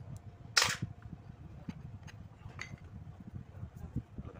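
Metal parts of a lathe apron being handled during disassembly: one sharp, loud clack about half a second in, then a few light clicks over a low handling rumble.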